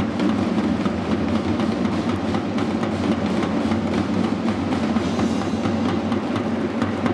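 Stadium crowd clapping in rhythm to drumming and music, dense regular strokes over a steady low rumble.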